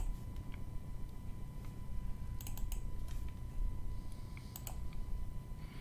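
Scattered light clicks of a computer keyboard and mouse, some in quick pairs, as a slideshow is worked, over a faint steady hum.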